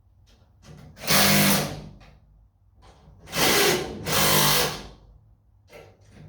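Cordless power driver running in three short bursts, driving fasteners while a garage-door bracket is fitted.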